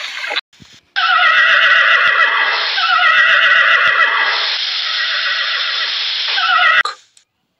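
Horses whinnying: a run of long calls that fall in pitch, starting about a second in and stopping shortly before the end.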